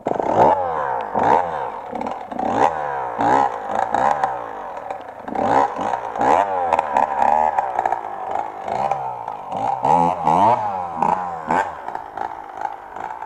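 Enduro motorcycle engine revved in repeated short bursts of throttle, its pitch rising and falling about once a second, with scattered knocks.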